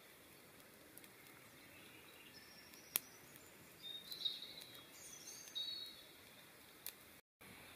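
A small stick campfire crackling with a few sharp pops, the loudest about three seconds in. Short high bird calls chirp over it in the middle stretch.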